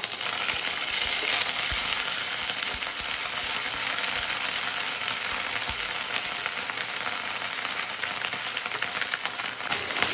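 Ginger paste frying in hot mustard oil and ghee with whole spices in a kadai: a steady sizzle full of fine crackles, while a wooden spatula stirs it around the pan.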